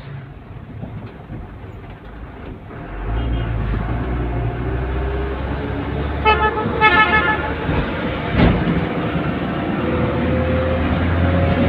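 Vehicle engine running while driving, heard from inside the cab, its rumble growing louder about three seconds in. A vehicle horn toots in a short pulsing series about six seconds in, and a single knock follows shortly after.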